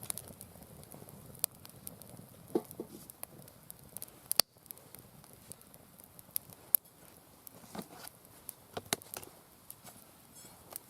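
Mixed-wood campfire crackling, with irregular sharp pops and snaps; the loudest pop comes a little over four seconds in.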